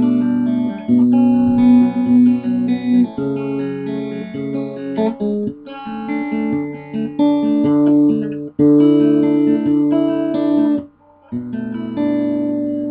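Improvised instrumental music, with notes and chords held and changed every second or so, breaking off briefly near the end.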